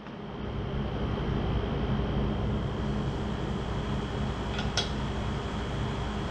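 Steady hum of a running fan, with a thin high whine over it, and one sharp metallic click near the end.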